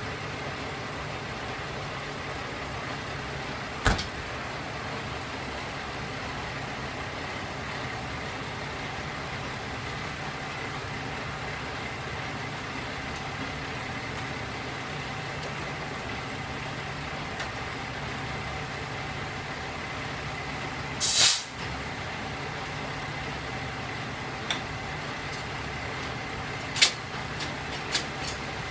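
Diesel railcar engines idling steadily while the two-car set is uncoupled. A sharp knock comes about four seconds in, a short loud hiss of air around two-thirds of the way through, and a few sharp clicks near the end as the coupling is worked.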